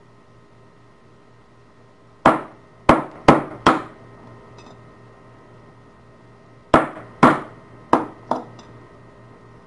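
Sharp hammer blows on a metal padlock body as it is knocked apart: four quick strikes, a pause of about three seconds, then four more, each with a brief metallic ring.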